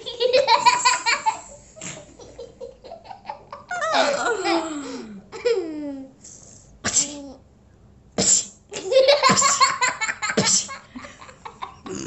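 A woman and a young girl laughing hard in rapid bursts, in two loud fits: one at the start and another past eight seconds, with the girl's laughter sliding down in pitch in between. A few short, sharp put-on sneezes break in between the laughs.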